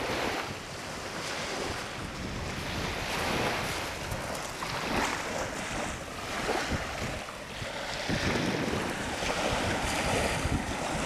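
Sea waves washing on a shore, swelling and easing every few seconds, with wind buffeting the microphone.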